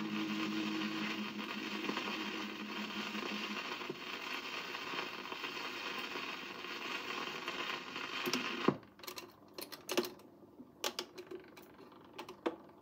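Vintage autochange record player at the end of a single: the last note dies away over steady surface hiss from the stylus in the groove. About nine seconds in, a sharp click cuts the hiss off, and a scatter of clicks and knocks from the player's mechanism follows.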